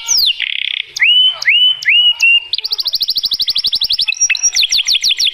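Domestic canary singing a varied song. Its phrases change quickly: falling whistled notes, a short buzz, three or four rising whistles, a fast trill about halfway through, then another run of quick falling notes.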